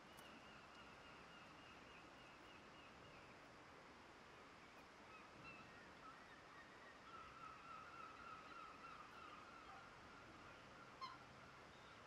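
Faint, thin, high peeping of one-day-old black swan cygnets in long runs, strongest in the second half, with one brief sharp sound near the end.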